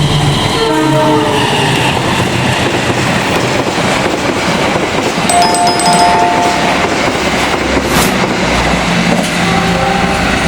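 Indonesian diesel locomotive horn sounding the semboyan 35 signal in chord blasts: near the start, a two-tone blast in the middle, and another near the end. Under it is the steady rumble and clatter of a train running on the rails.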